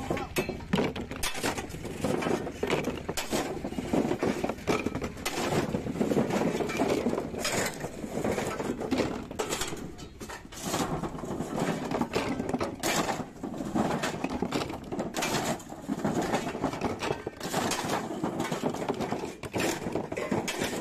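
Husked coconuts being tossed and dropped into plastic tubs and onto a truck bed: a steady, irregular run of knocks and thuds.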